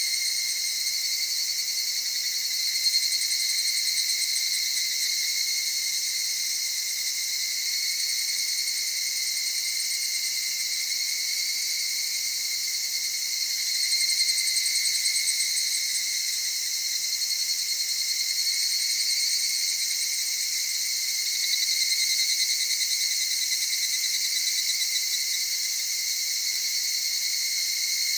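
A chorus of evening cicadas (higurashi, Tanna japonensis) singing, many overlapping high, soft trilling calls that swell and fade in waves every several seconds.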